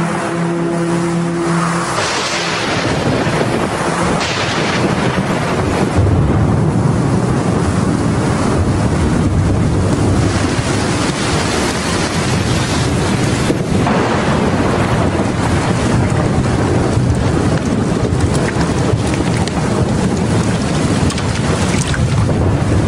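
Heavy tropical rain pouring down in a thunderstorm: a dense, steady hiss that grows heavier about six seconds in.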